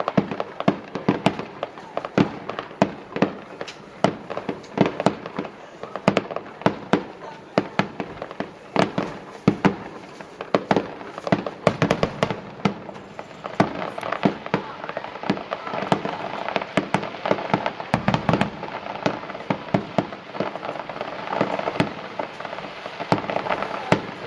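Fireworks display: aerial shells bursting in quick succession, several sharp bangs a second, growing denser in the second half.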